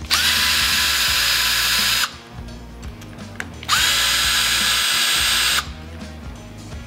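Cordless Snap-on drill/driver with a T27 Torx bit running twice, about two seconds each time, backing out the front brake master cylinder clamp screws. Each run spins up with a quick rising whine and then holds a steady pitch.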